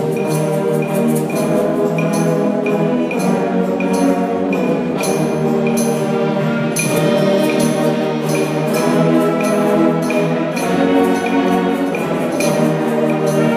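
High school orchestra playing together: sustained chords from many instruments, with regular light percussion strokes running through them.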